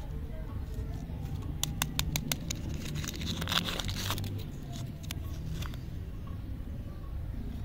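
Candy wrapper being crinkled and peeled off a lollipop by hand: sharp crackles, then a longer rustling tear about three to four seconds in, then a few more crackles.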